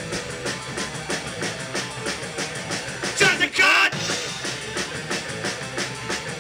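Live punk rock band playing an instrumental stretch, with drum kit and electric guitar at a fast, steady beat. There is a brief, loud, high-pitched burst a little past the middle.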